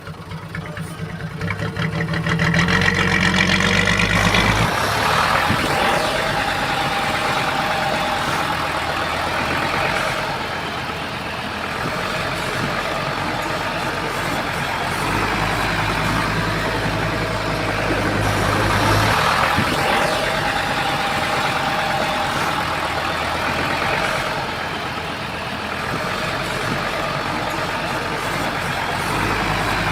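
Bulldozer's heavy diesel engine working under load. It revs up over the first few seconds, then runs on steadily, its pitch and level shifting as the load changes.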